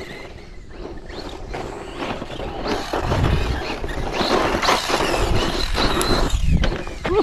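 Rlaarlo Omni-Terminator electric 1:10 RC monster truck driving over a loose dirt track: a faint high motor whine with tyre and dirt noise, and a low rumble that swells in the middle.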